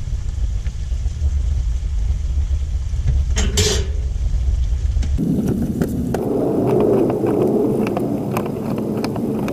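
A low rumble that stops abruptly about halfway through, with a short clatter just before it. Then a knife slicing a tomato on a plastic cutting board, a run of sharp taps over a steady noise.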